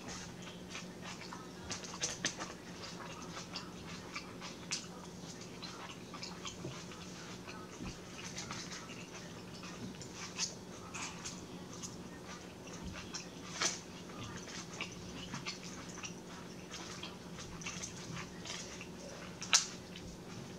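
Close-up chewing and wet mouth smacks of a person eating a shrimp salad with lettuce, made up of many short clicks and squelches, with a few louder clicks towards the end. A steady low hum runs underneath.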